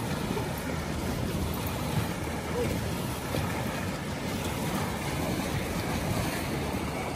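Steady wind noise on the microphone mixed with small river waves lapping at the shore.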